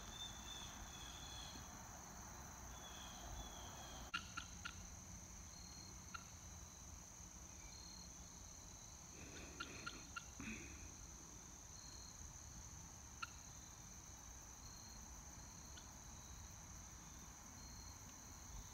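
Faint, steady chirring of insects, with short repeated chirps over it and a few soft scattered clicks about four, ten and thirteen seconds in.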